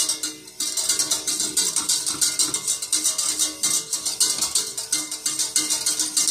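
Wire whisk beating thick milk pudding in a stainless steel pot: a fast, rhythmic metallic rattle and scrape at about five strokes a second, with a short break about half a second in. The pudding is being whisked continuously off the heat to keep it from setting too thick.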